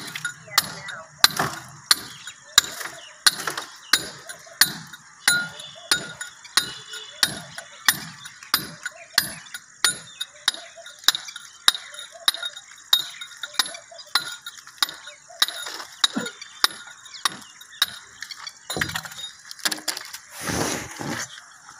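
A hand tool working on plastic water pipe, making a steady run of sharp clicks about one and a half a second, with a longer scraping noise near the end.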